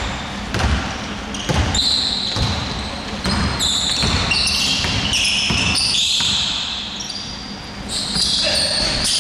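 Basketball dribbled on a hardwood gym floor, repeated bounces echoing in a large hall, with a flurry of short high sneaker squeaks on the court in the middle and again near the end.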